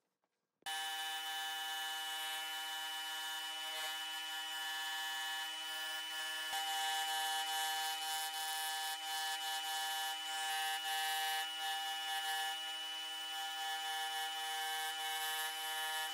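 Electric scroll saw starts abruptly about half a second in and runs steadily with a whine, its blade cutting through a thick wood block along a paper pattern.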